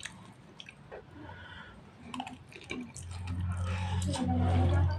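Eating fried noodles from a nonstick frying pan: a fork clicks and scrapes against the pan while noodles are slurped and chewed, with small wet mouth sounds. About three seconds in, a low steady hum rises over it and becomes the loudest sound, breaking briefly just after the fourth second.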